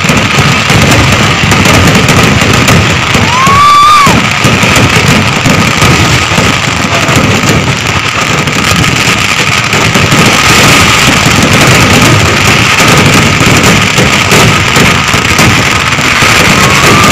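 Kerala temple-festival fireworks (vedikettu) going off in a dense, continuous barrage of bangs and crackling, the explosions running together without a break. A brief whistle rises and falls about three and a half seconds in.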